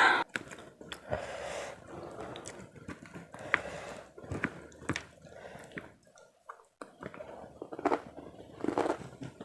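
Close-miked chewing and biting of a meal of karedok (raw vegetables in peanut sauce) with rice and crackers: irregular crisp crunches and wet mouth sounds, with a loud bite right at the start.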